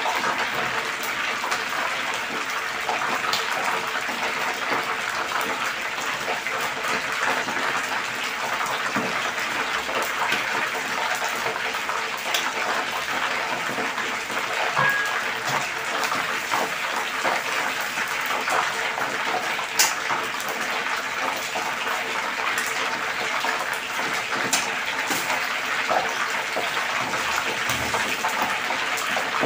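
Flour-dredged talakitok (trevally) pieces deep-frying in a wok of hot oil: a steady sizzle with scattered pops and crackles.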